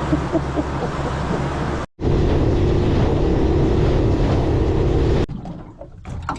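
Boat under way at speed: a steady outboard drone mixed with wind and rushing water. It drops out for a moment about two seconds in, and the noise falls away sharply after about five seconds.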